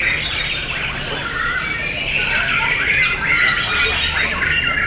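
White-rumped shama singing in a dense chorus of many caged songbirds, phrases overlapping without a break.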